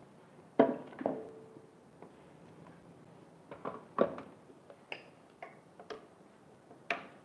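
Scattered knocks and clicks of a blender jar and its lid being handled and set onto the blender's motor base, about eight in all. The loudest are about half a second in and about four seconds in, and one near the start leaves a short ring. The blender motor is not running.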